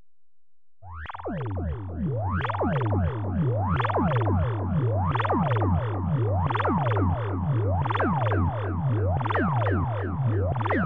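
Hand-built analog synthesizer with a 1976 hand-made voltage-controlled filter, starting up about a second in: a low pulsing drone under fast, overlapping tones that sweep up and down several times a second.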